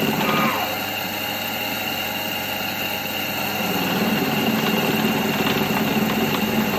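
Myford Super 7 lathe running under power from its freshly rebuilt and rewired electric motor, with a steady mechanical hum and a thin high whine. This is its first spin-up test after the motor was refitted. A short falling whine comes just after the start and again near the end.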